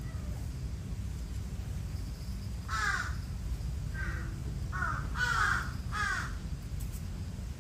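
A crow cawing: about five harsh caws, the first about three seconds in and the rest close together over the next three seconds.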